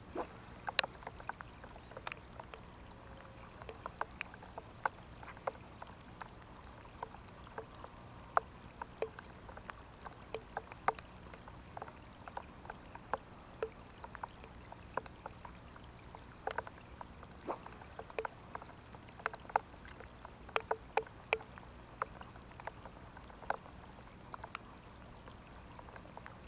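Light rain: scattered drops land with sharp, irregular ticks, about one or two a second, over a faint steady background.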